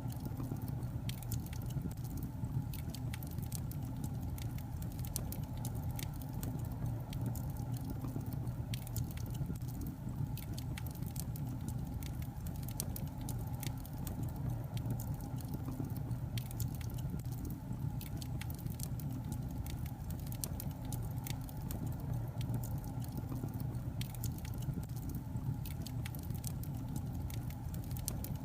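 Logs burning in a fireplace, crackling with frequent sharp, irregular pops and snaps over a steady low rumble.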